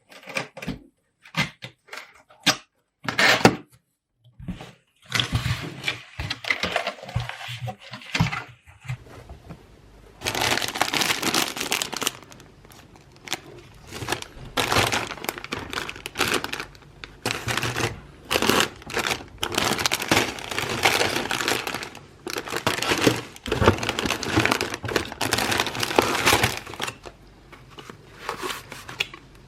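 Household handling noises: a run of sharp clicks and knocks, then repeated bursts of rustling and crinkling, each a second or two long with short pauses between.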